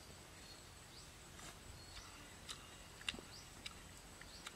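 Faint natural ambience: a steady high-pitched insect tone with a few short chirps and scattered brief clicks, the sharpest about three seconds in.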